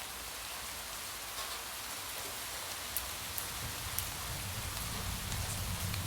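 Steady rain falling on a surface, with a few sharp ticks. About halfway through, a low rumble builds underneath and grows louder.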